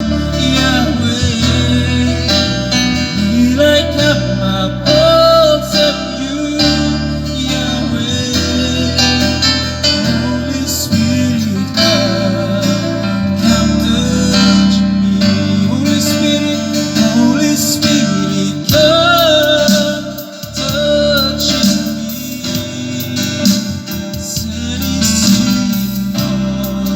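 A gospel song sung in Tok Pisin with guitar accompaniment and a steady bass line.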